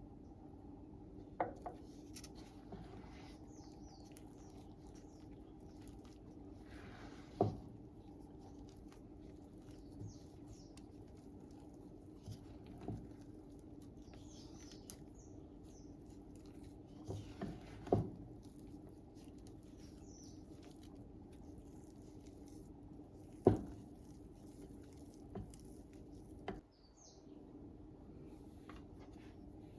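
Kitchen handling sounds during cookie baking: scattered sharp taps and clicks, the loudest about two-thirds of the way through, with soft brief scrapes, over a steady low hum.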